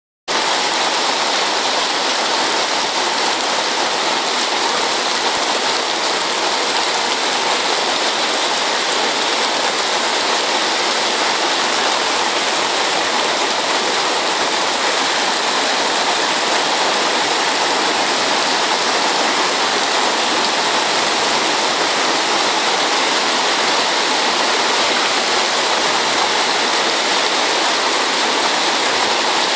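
Heavy rain and flowing floodwater, an even, unbroken hiss.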